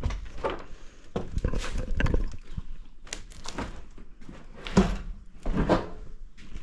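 Irregular footsteps and knocks on the floor of an airliner cabin, with the loudest thuds about a second in, around two seconds in, and near the end.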